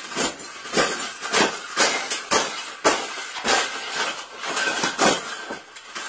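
A wire cage being stomped on repeatedly, about two stomps a second: boots crunching the metal wires, which rattle and clatter with each blow.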